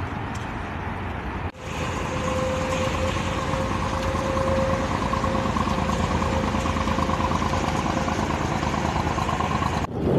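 Inboard engine of a small wooden junk-style motor boat running steadily as it motors past: a steady hum with a clear engine tone. The sound breaks off briefly about a second and a half in.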